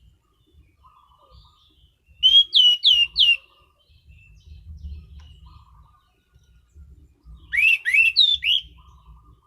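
Anis cendana (orange-banded thrush) singing twice, each a quick phrase of about four loud, sharp whistled notes, the first set falling and the second rising, about five seconds apart. Soft low knocks and faint quiet twittering fill the gaps.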